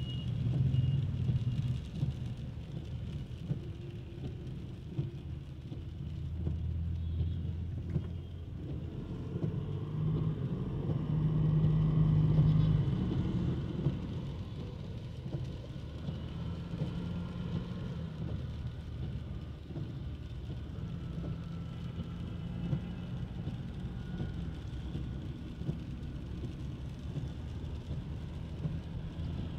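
Street traffic: motor-vehicle engines running and passing, with one growing louder and fading again around the middle.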